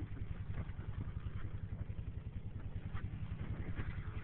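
ATV engine running steadily at low speed close by, a low, even pulsing with no revving.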